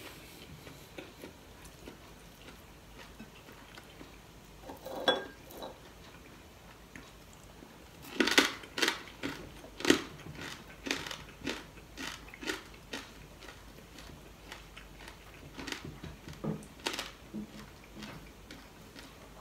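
Close-up eating sounds from a person eating rice and stew by hand: chewing, with scattered sharp clicks and taps. The clicks bunch together about eight to ten seconds in and again around sixteen seconds.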